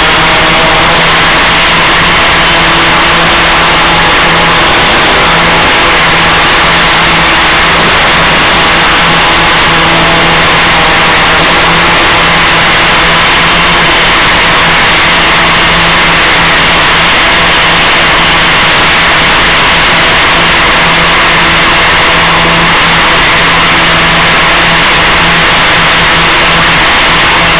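Steady buzz of the Gaui 500X-S quadcopter's electric motors and propellers at a hover, heard through the downlinked analog audio channel under a constant loud hiss. The pitch holds even throughout.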